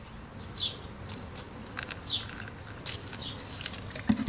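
Hydrochloric acid poured onto sodium bisulfate in a plastic tray, splashing and fizzing faintly, with a few sharp clicks. Short, high, falling chirps sound about once a second over it.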